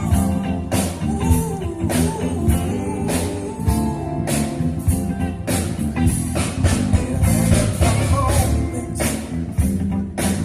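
Rock-blues song with a singer, guitar and a steady drum beat, starting abruptly right at the start.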